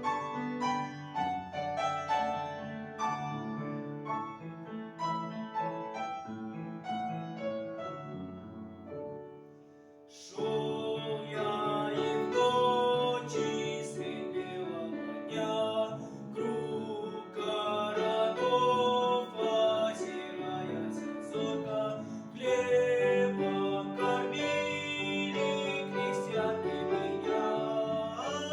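Bandura music: plucked chords and melody that fade into a short pause about ten seconds in, then come back louder and fuller, with sharp strummed attacks.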